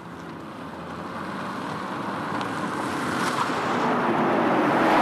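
Vintage sedan driving up, its engine and tyre noise growing steadily louder as it approaches.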